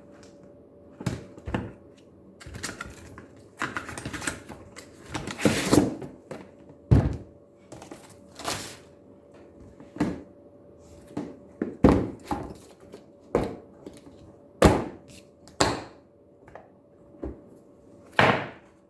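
Handling noises from a cordless drill kit and its packaging being unpacked: irregular clicks, knocks and thunks of plastic and cardboard, with a couple of stretches of rustling.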